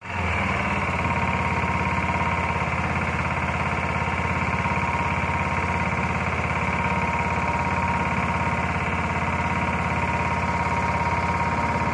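Small wooden boat's engine running steadily at speed, with a fast, even firing rhythm and a high steady whine over a low hum.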